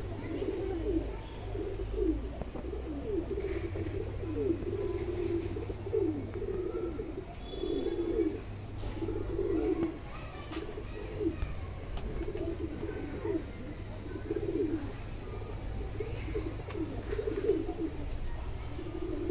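Highflyer tumbler pigeons cooing, low rolling coos repeating almost without a break.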